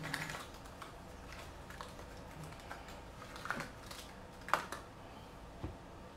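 Irregular light clicks, taps and rustles of small parts being handled, with a sharper click about four and a half seconds in and a duller knock near the end.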